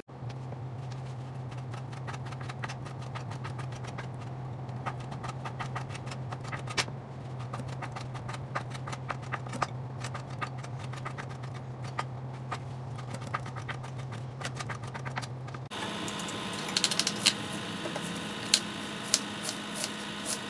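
Kitchen knife cutting on a plastic cutting board: light, irregular knife clicks over a steady low hum as raw shrimp are cut. About three-quarters of the way through, the knife clicks turn sharper and louder as it chops through a bunch of green chives.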